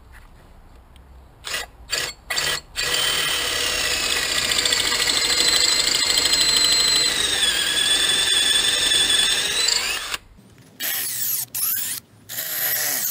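Cordless drill boring into the rubber of an old suspension bush in a steel trailing arm. A few short trigger blips lead into a steady run of about seven seconds, its whine shifting in pitch. Near the end come several short starts and stops.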